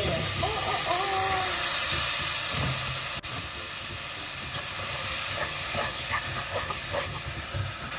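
Hot food in a pressure cooker sizzling and hissing steadily as drained navy beans are tipped in on top of fried onion and tomato, with small knocks of the beans landing and a metal spoon stirring.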